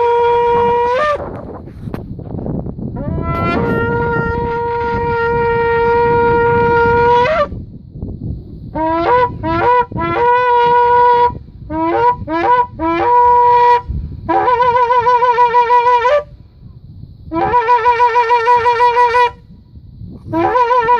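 A shofar (ram's-horn trumpet) being blown. A long held note ends with a slight upward break about a second in, and another long note starts with an upward slide and holds for about four seconds. Then comes a series of short broken blasts, each sliding up into the note, and finally three blasts that waver rapidly in pitch.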